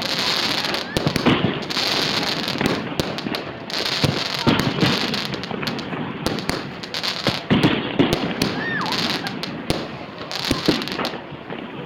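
Aerial fireworks going off: an uneven, rapid run of sharp bangs over constant crackling.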